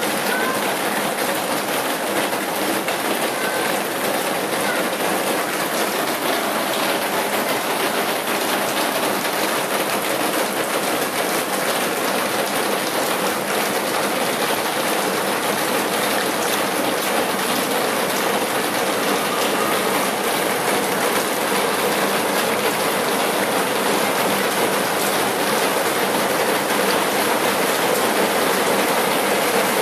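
A steady, even rushing hiss of noise.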